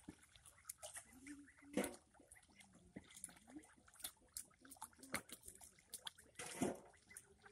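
Ducklings dabbling in shallow muddy water: faint small clicks and splashes from their bills, with soft low calls and two louder splashy bursts.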